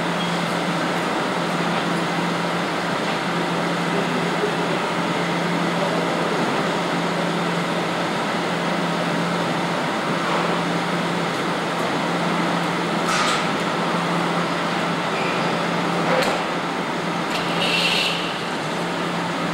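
Steady rushing air with a constant low motor hum from a spray-painting booth's air equipment, with a few short hisses in the last third.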